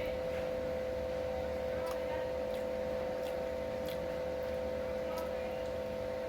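A steady mid-pitched hum with no change in level, and a few faint, sharp clicks scattered through the middle.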